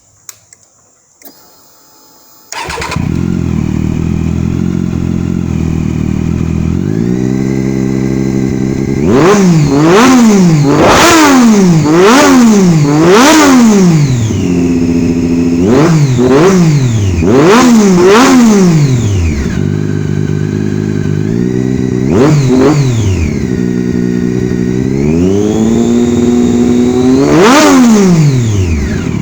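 Triumph Daytona 675R's three-cylinder engine, fitted with a Carbox "No Muffler" carbon-fibre exhaust with a stainless end silencer, starting about two and a half seconds in and idling. It is then revved in a run of quick sharp blips, each falling back toward idle, with a longer held rev near the end.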